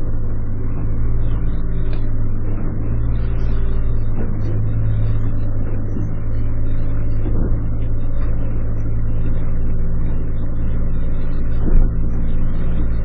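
A small fishing boat's engine running steadily with a low drone, with one brief knock near the end.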